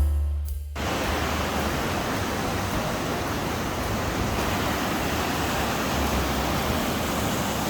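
Steady roar of rushing water, as from a waterfall, starting under a second in after background music cuts off.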